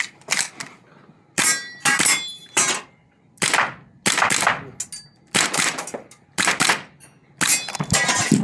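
A string of airsoft pistol shots, singles and quick pairs at an uneven pace. Some are followed by the short ring of BBs striking steel plate targets.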